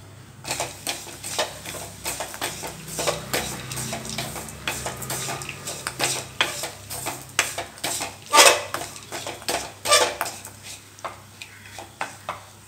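A wooden spatula stirring grated coconut and powdered jaggery in a stainless steel kadai, scraping and knocking against the pan in quick irregular strokes. Two louder knocks come about eight and ten seconds in, and the stirring grows lighter near the end.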